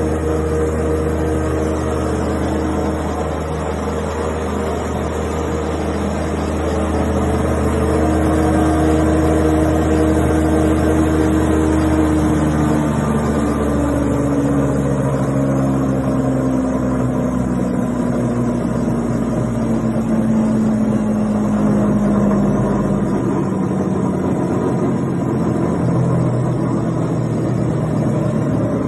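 SR-6 thickness planer running, its electric motors giving a steady hum with several tones. About halfway through, one tone slowly falls in pitch over some ten seconds, and the deepest part of the hum drops away about three quarters of the way in.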